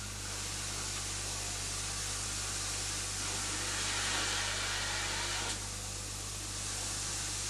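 Steady hiss over a low constant hum, swelling slightly in the middle and dropping back abruptly about five and a half seconds in.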